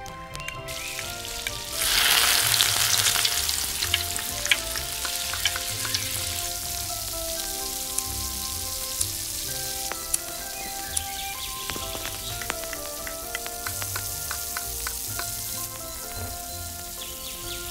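Hot oil sizzling as food fries in a miniature pan, starting abruptly about two seconds in and loudest just after, with scattered small pops. Light background music plays underneath.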